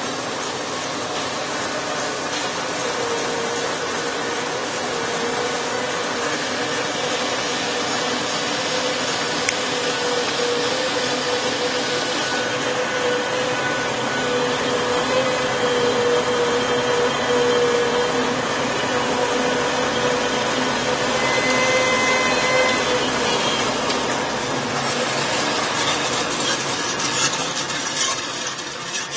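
Powermatic band saw running steadily: an even mechanical whirr with a constant mid-pitched hum, growing a little hissier near the end and starting to fade in the last second.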